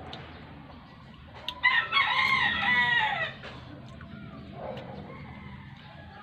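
A rooster crows once, a call of about a second and a half that bends down in pitch at the end.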